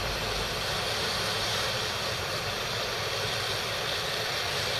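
Hot air rework station blowing a steady rush of air onto the tab of a MOSFET on a PC motherboard. It is there to help a soldering iron bring the joint up to melting temperature.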